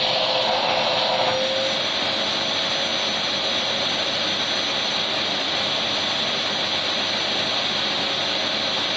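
Vacuum cleaner running continuously: a steady, loud rushing of motor and air with a faint, thin high whine above it.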